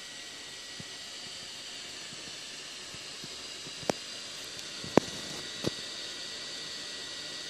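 Steady hiss from a running planted aquarium, with three short sharp clicks about four, five and five and a half seconds in, the middle one the loudest.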